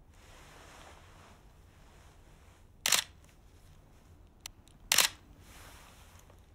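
Canon digital SLR camera shutter firing twice, about two seconds apart, each a short single-frame click.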